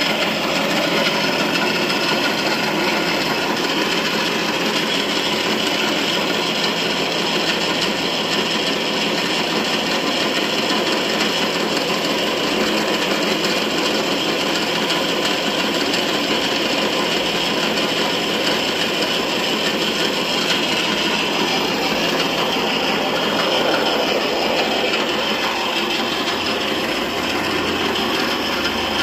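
Pellet mill running steadily on a test run, a loud constant mechanical drone with a steady hum.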